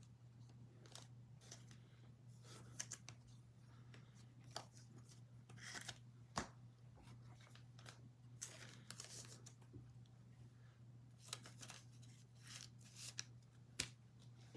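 Faint crinkling, tearing and clicking as a trading-card pack is opened and its cards are handled, with a low steady hum underneath.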